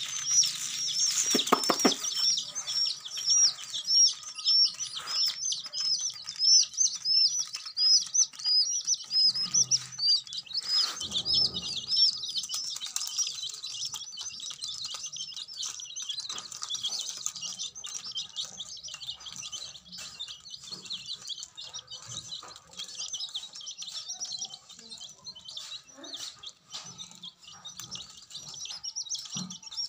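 A group of young chicks peeping continuously, many short high chirps overlapping, busiest in the first half and thinning out later.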